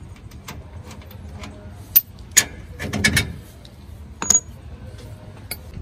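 A handful of sharp metallic clinks and clicks from a steel combination wrench against the rear shock absorber's mounting bolt and nut, one clink ringing briefly, with handling rustle in between.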